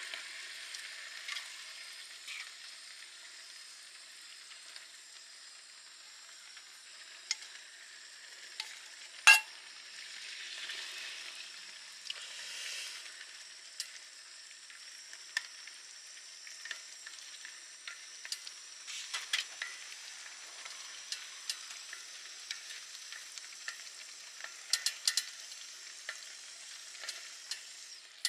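Meat and egg sizzling and simmering in an aluminium pot over a gas stove, with chopsticks stirring and clicking against the pot. There is one sharp click about nine seconds in and a cluster of quick clicks near the end.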